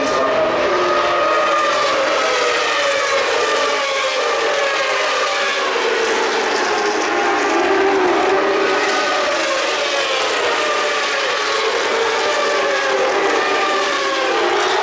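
Several Grand Prix racing motorcycles at full race pace, their engines overlapping. Their pitch keeps rising and falling as the bikes accelerate, shift and pass.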